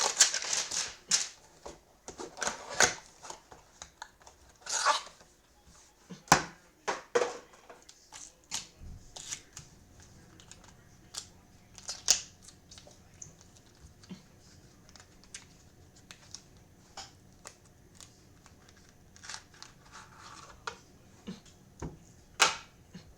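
Hands opening a sports-card hanger box and handling the cards: brief rustles and crinkles of packaging with many scattered sharp clicks and taps, busiest in the first few seconds and sparser later.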